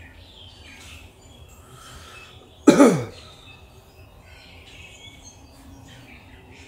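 A man coughs once, short and harsh and falling in pitch, about three seconds in, with birds chirping in the background.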